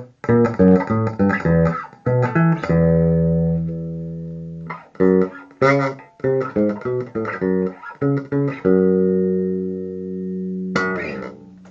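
Yamaha RBX 375 five-string electric bass played clean with no effect pedal: quick runs of plucked notes, each broken by a long held note left to ring out, with a few last plucks near the end that fade away.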